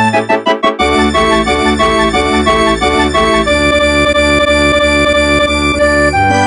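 Polyphonic ringtone from a Mitsubishi M21i mobile phone: a synthesized melody with chords over a bass line. It opens with a quick run of short notes, a steady bass comes in just under a second in, and from about halfway the upper notes are held longer.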